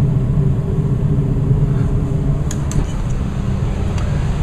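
Westinghouse gas furnace running with its blower fan on high speed, a steady low hum. A few light clicks come about two and a half seconds in and again near the end.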